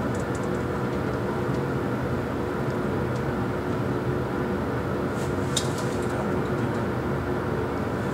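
Steady rumble and hum in an airliner flight-simulator cockpit: the simulated engine and airflow noise on final approach. A brief click sounds about five and a half seconds in.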